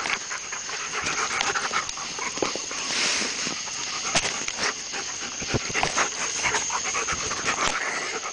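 Two German Shepherds panting and scuffling in rough play, with frequent sharp clicks and knocks from the jostled camera.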